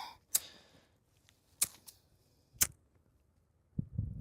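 A lighter being flicked again and again, three sharp clicks about a second apart, failing to stay lit in freezing wind. A low rumble comes in near the end.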